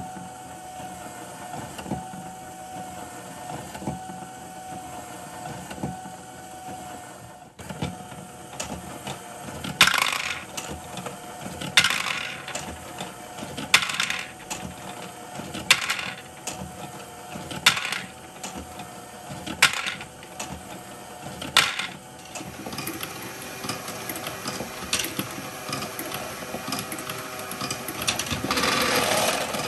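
A Lego Great Ball Contraption module running: its motor and gears whir steadily while plastic balls clatter through the mechanism in bursts about every two seconds. The clicking grows busier near the end.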